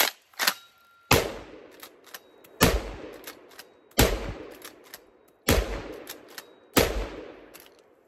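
Black Aces Tactical lever-action 12-gauge shotgun with an 18.5-inch barrel, fired five times with low-brass shells at about one shot every one and a half seconds. Each blast is followed by a long echo that dies away, and there are quick metallic clicks of the lever being worked between shots. The gun cycles without a hitch.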